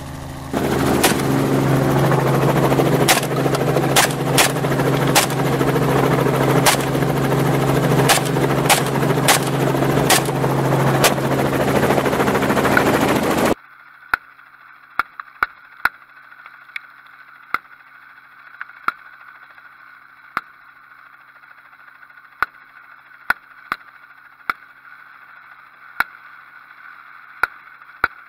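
A light helicopter flying low overhead, its rotor and engine running steadily, while a FosTech Origin 12 semi-automatic 12-gauge shotgun fires from it in quick, irregular shots. About halfway through, the sound drops suddenly to a much fainter helicopter hum, with sharp shots still coming every second or so.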